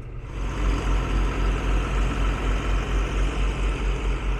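Heavy diesel engine of a farm vehicle building up as it moves off, then running with a deep, steady throb.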